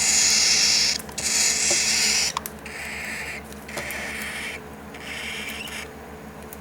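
Cockatiel chick giving raspy hisses in about five bursts, each under a second long, with short gaps between them; the later ones are weaker.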